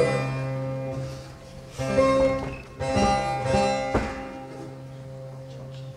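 Bağlama (long-necked Turkish saz) strummed, several struck chords ringing out over the sustained ring of its strings, then dying away in the last couple of seconds.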